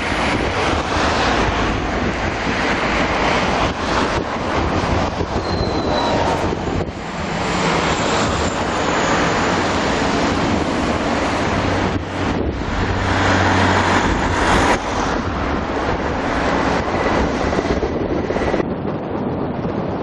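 Wind rushing and road noise heard from a moving vehicle: a steady, loud rush of air over the microphone with a low engine hum underneath.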